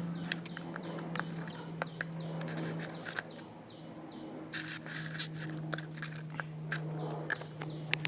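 Slime being squished and stretched by hand, making irregular sticky clicks and small pops over a steady low hum.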